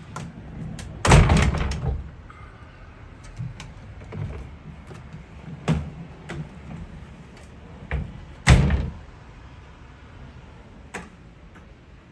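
Sliding doors being run along their tracks and knocking shut, loudest about a second in and again about eight and a half seconds in, with lighter clicks and knocks between.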